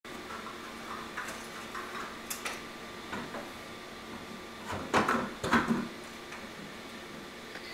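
Small plastic clicks and knocks as a filament spool is handled and fitted onto the holder at the back of a MakerBot Replicator 2 3D printer, with a louder cluster of knocks about five seconds in. A faint steady hum runs underneath.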